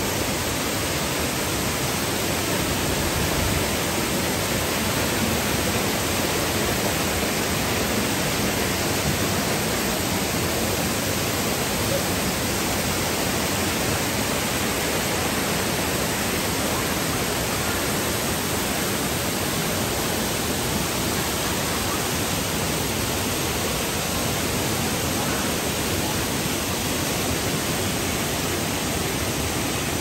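Waterfall cascading down rock faces: a loud, steady rush of falling water.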